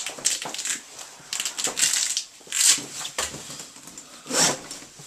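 A soft camcorder case being handled and opened: several short bursts of rustling and scraping.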